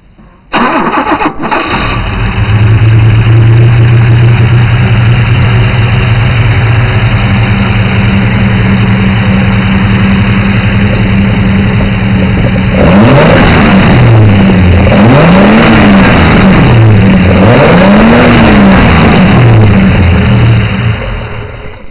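A Valiant's 225 slant-six, breathing through three twin-choke side-draft carburettors, cranks and catches about half a second in, then idles steadily. From about 13 s it is revved three times, its note rising and falling with each blip, before it settles back and winds down near the end.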